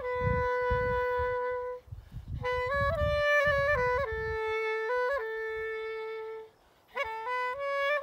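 Clarinet playing a slow melody of long held notes with short stepwise runs, pausing for breath about two seconds in and again near the end. Wind gusts rumble on the microphone underneath.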